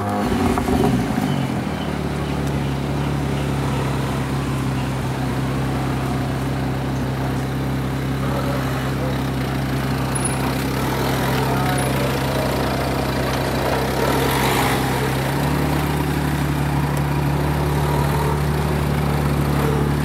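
BMW 1M's twin-turbo inline-six starting through an Akrapovic exhaust: it fires and flares up in the first second, then settles into a steady idle. About fifteen seconds in, the idle note changes and carries more low rumble.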